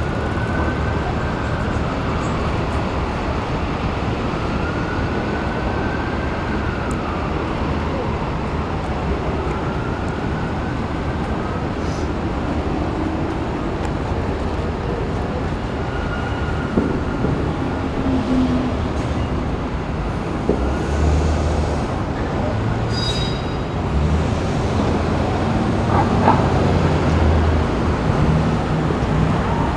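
Steady city street noise from passing traffic, a continuous low rumble with faint rising and falling tones from vehicles going by.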